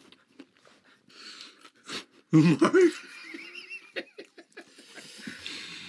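Someone chewing a mouthful of fried chicken, with small scattered crunching clicks, and a loud burst of wheezing laughter a little over two seconds in.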